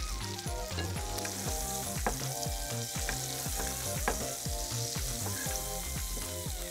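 Tuna steaks sizzling as they fry in garlic butter, with hot butter being spooned over them. Background music with a steady beat plays throughout.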